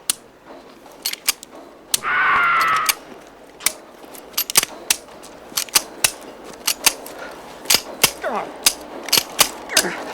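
A rapid series of sharp metallic clicks, like a pistol's hammer dropping again and again on a misfire. A loud, short, wavering high-pitched sound comes about two seconds in.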